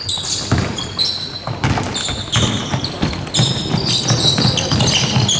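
Basketball game play: the ball bouncing on the court, with many short high-pitched sneaker squeaks on the floor.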